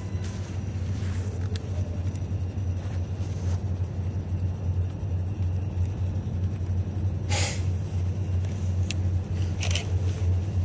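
Steady low engine rumble, with brief sharper noises about seven and nine and a half seconds in.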